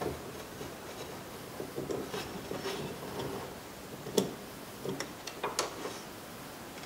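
Phillips screwdriver backing a screw out of the plastic door-handle trim on a car's interior door panel: faint scraping and ticking, with a few louder clicks past the middle.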